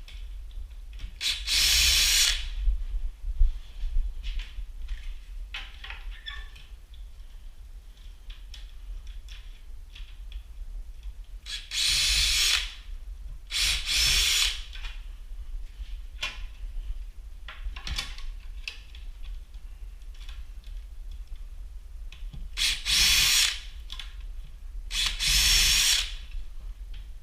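Cordless drill running in five short bursts of about a second each, drilling pilot holes or driving screws for cabinet hardware, with small handling clicks between bursts.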